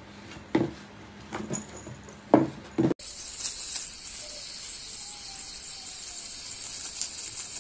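A cardboard box knocking and scuffing on a tile floor as a cat shoves it around with its head inside: a few short sharp knocks, the loudest a little over two seconds in. About three seconds in it cuts to a steady high-pitched hiss.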